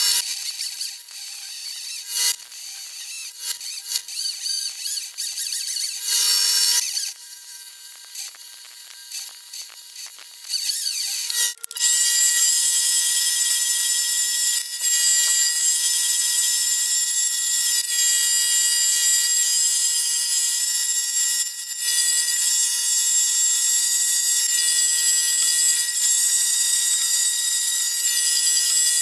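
Mini lathe running with a steady high machine whine while cutting an aluminium disc: for the first dozen seconds the cutting comes in short spells as a large drill bores the centre, then about twelve seconds in a continuous high-pitched cutting squeal sets in as a lathe tool takes a cut.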